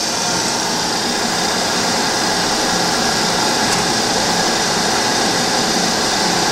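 Steady machine whir and hiss from a powered-up Tsugami BU26-SY CNC Swiss-type lathe, with a faint low hum underneath.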